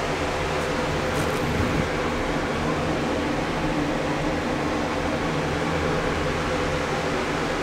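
A steady mechanical whir with a low hum underneath, like a running fan, holding even throughout, with a faint knock about two seconds in.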